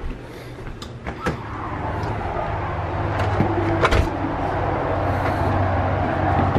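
A skateboard's wheels rolling on asphalt: a steady rumble that builds over the first two seconds, with a few sharp clacks, the loudest about four seconds in. A couple of sandal footsteps come just before the rolling starts.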